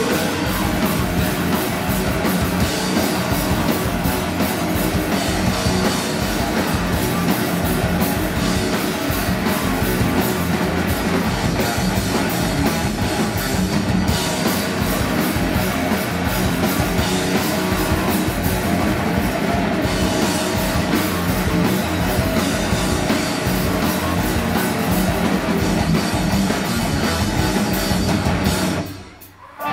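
A live heavy metal band playing loud, with distorted guitars, bass and a drum kit. Near the end the band drops out for under a second, then comes straight back in.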